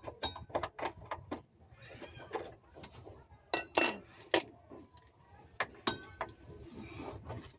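A run of irregular sharp metallic clicks and clanks, some with a short ringing tail, as tools and metal parts are handled while a rear shock absorber is changed. The loudest clank comes about halfway through.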